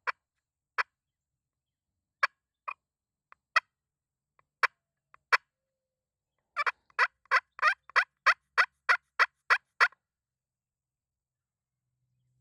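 Hen turkey clucks and yelps run on a hunter's turkey call: a few scattered single clucks, then a run of about ten evenly spaced yelps at roughly three a second.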